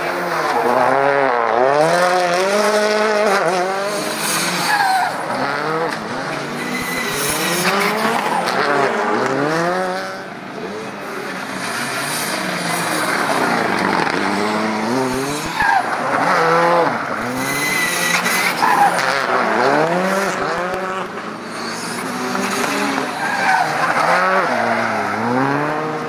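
Rally car engines revving hard and dropping off again and again as the cars are flung round a tight cone course, the note climbing and falling every couple of seconds, with brief tyre squeals.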